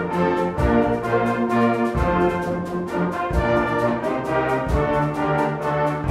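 Brass band music: a band of brass instruments playing held chords that change every second or so.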